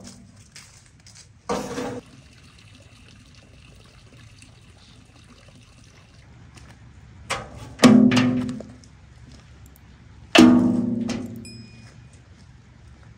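Three hard knocks, each ringing briefly: one about a second and a half in, then two close together near 8 and 10 seconds, over a quiet background.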